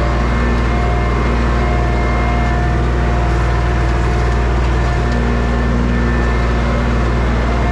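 Engine running steadily at a constant speed, with a strong low, even hum.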